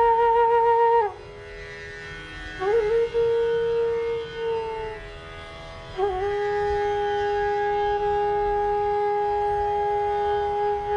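Bansuri (bamboo flute) playing slow, long held notes of Raag Yaman: a note with a slight waver breaks off about a second in, a second note slides up and holds for a couple of seconds, and a third begins about six seconds in and holds steady to the end.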